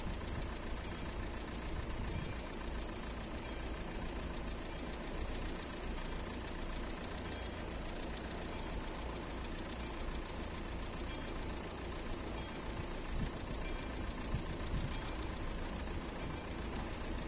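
Road vehicles idling while held at a closed railway level crossing: a steady low engine rumble under a constant high-pitched hiss.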